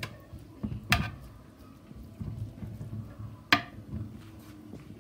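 A metal spoon knocking twice against a dark earthenware pot, about a second in and again past halfway, while white sauce is spooned over cooked cauliflower and broccoli.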